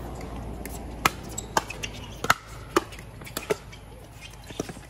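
Pickleball paddles striking a plastic pickleball in a rally, a string of sharp pops about two a second. Fainter pops come from games on neighbouring courts.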